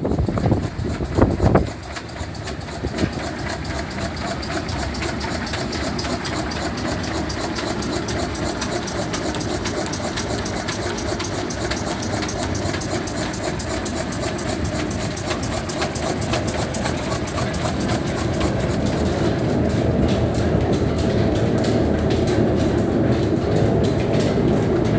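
Flat-belt transmission running steadily, with large pulleys, line shafting and belts turning and a fast, even clatter, driving a Wanderer horizontal milling machine. A few low wind buffets on the microphone come in the first two seconds, and the running noise grows louder toward the end.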